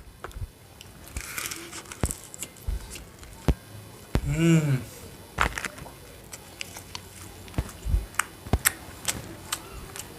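Close-miked eating sounds: chewing, with sharp mouth clicks and smacks and a brief crackle about a second in. About halfway through there is a short hummed vocal sound that rises and falls in pitch.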